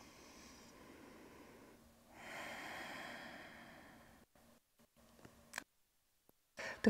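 A person breathing softly close to the microphone, with a longer, louder exhale about two seconds in. A few small clicks follow, and a short sharp noise near the end is the loudest sound.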